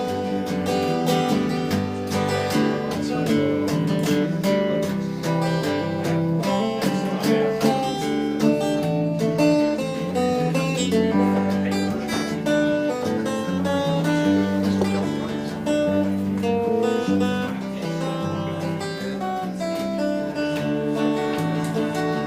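Acoustic guitar strummed and picked through an instrumental break between verses of a folk song, with no singing.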